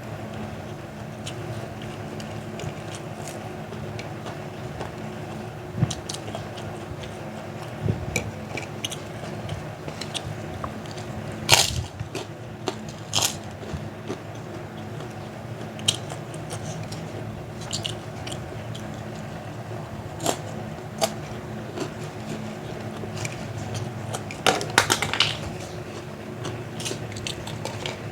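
Close-up eating: chewing with scattered crisp crunches from biting into kerupuk crackers and fried nuggets, the loudest crunches about twelve seconds in and again near the end, over a steady low hum.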